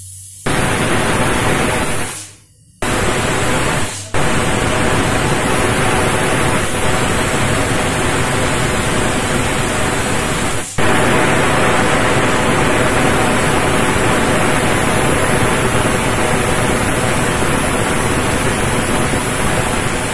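Stovetop aluminium pressure cooker whistling: steam escaping from its weight valve in a loud, steady hiss, the sign that it is at full pressure. The hiss is broken by a few abrupt cuts in the first half.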